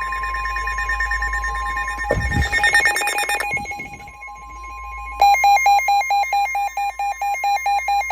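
Weather radios sounding their warning alert together: a steady single alarm tone with a fast pulsing beep over it. About two seconds in there is a brief clatter of clicks, and about five seconds in a louder beeping alarm starts, its high tone flipping between two pitches about five times a second.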